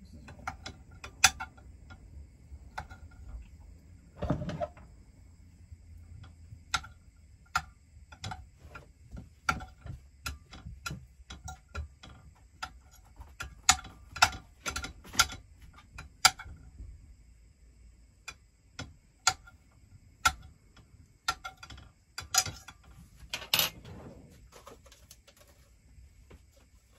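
Irregular sharp clicks and clinks of cooking at a frying pan, coming in loose clusters, over a low steady hum.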